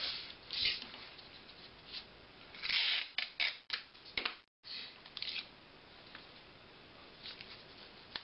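Clear sticky tape pulled off a desktop dispenser and torn off against its cutter, with paper being handled. It comes as a few short tearing sounds, the loudest about three seconds in.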